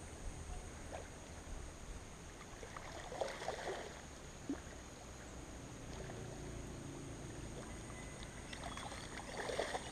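Faint water sounds over a low rumble, with a few soft splashes about three seconds in and again near the end.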